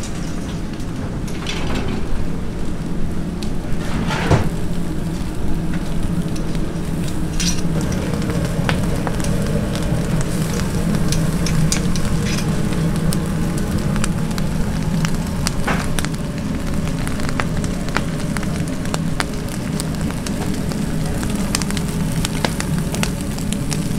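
Fish grilling over burning charcoal briquettes: a steady sizzle with frequent sharp crackles and pops, over a low steady hum.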